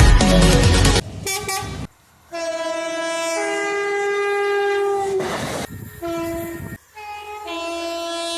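Train air horn sounding a chord of several pitches: after a second of electronic music cuts off, a short faint blast, then a long blast of about three seconds, a short blast, and another long blast.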